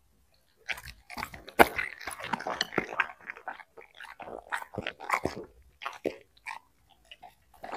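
Black Labrador crunching and chewing crisp green vegetable stalks in quick, irregular bites, with the loudest crunch about a second and a half in and short pauses toward the end.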